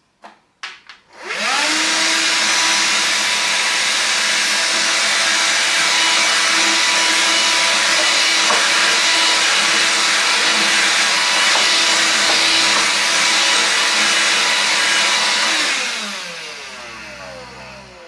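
AEG HX6-30STM cordless handheld vacuum cleaner: a few clicks, then the motor spins up with a rising whine about a second in and runs steadily with rushing air while it sucks up dust and hair. Near the end it is switched off and winds down with a falling whine.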